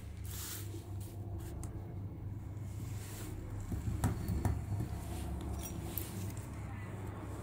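Light clicks and taps of small toy parts and a rubber mat being handled on a workbench, with a couple of sharper clicks about four seconds in, over a steady low hum.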